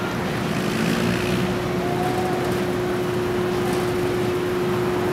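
Steady outdoor city background noise with traffic, and a steady hum that comes in about a second in.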